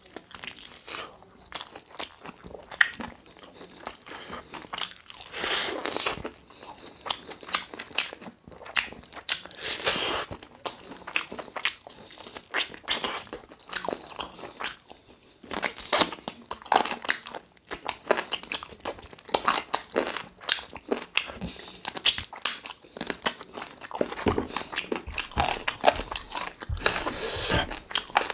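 Close-miked eating: a person biting and chewing chicken drumsticks with rice, a fast, irregular run of wet mouth clicks and smacks with a few louder bites.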